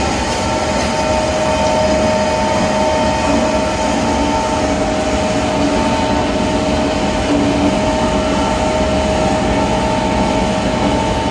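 SUNBY Type 130-II meat-bone separator running steadily as it processes chicken necks, a loud even machine noise with a steady whine over it.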